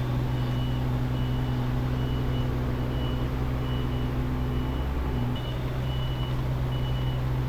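Diesel engine of a compact excavator running steadily while its travel alarm beeps about once a second. The engine note dips and changes about five seconds in, as the machine works or moves.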